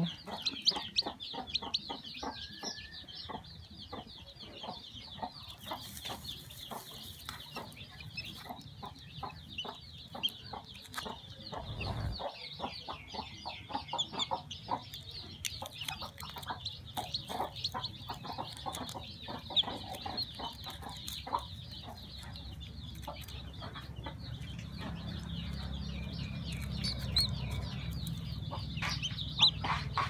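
Baby chick peeping: a rapid, continuous run of short high peeps, with scattered small crackles as eggshell and straw are handled.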